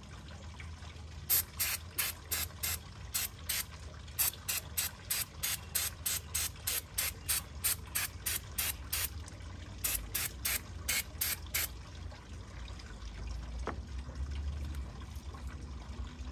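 Ratchet wrench clicking as it is worked in quick strokes, about three a second, for around eight seconds. After a short pause comes a second run of about six strokes.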